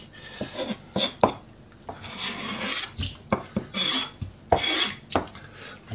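Kitchen knife scraping and chopping on a plastic cutting board while sandfish are cleaned: several short rasping scrapes with a few sharp knocks between them.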